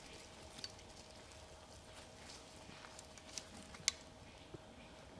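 Footsteps and twig snaps on wet forest leaf litter: a few short, sharp cracks over a quiet background with a faint steady hum, the loudest a little before four seconds in.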